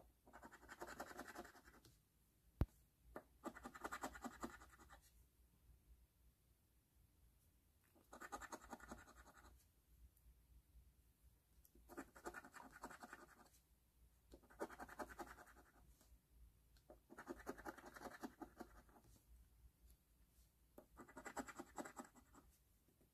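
A coin scratching the coating off a paper lottery scratch-off ticket in about seven short bursts of quick strokes, with pauses between. There is a single sharp tap about two and a half seconds in.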